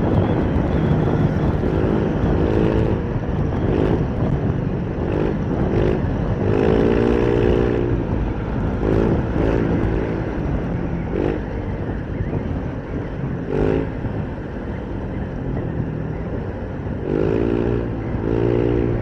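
Wind rushing over a foam-covered homemade external mic on a motorcycle at about 90 km/h, mixed with engine and road noise. Pitched engine tones swell and fade several times.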